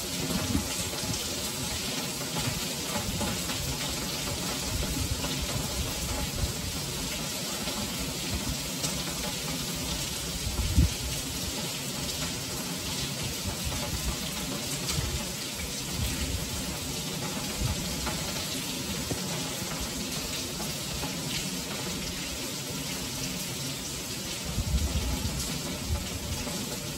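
Heavy rain falling steadily on stone paving and house walls, a continuous hiss with splashing, and one brief louder thump about eleven seconds in.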